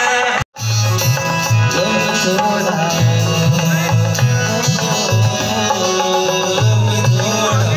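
Background music with a pulsing bass line and sustained melodic tones; it drops out for an instant about half a second in, then carries on.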